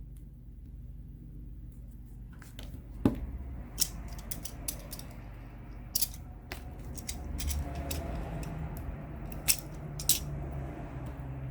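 Scattered sharp little clicks and taps from hands and a tool working on a phone's frame while a strip of double-sided adhesive is laid along its edge, over a low steady hum.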